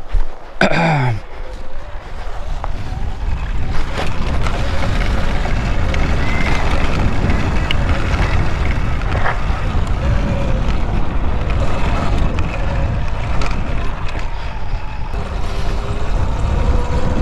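Wind buffeting the microphone of an electric bike as it rides over a dirt trail, a steady rough rush with a faint motor whine that wavers with speed. A brief tone drops sharply in pitch about a second in.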